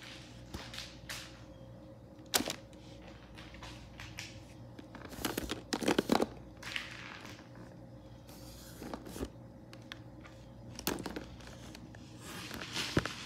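Hard plastic toy animal figures clattering and rustling against each other as a hand rummages through a box full of them. The sound comes as irregular knocks and scrapes, with the busiest, loudest stretch about halfway through.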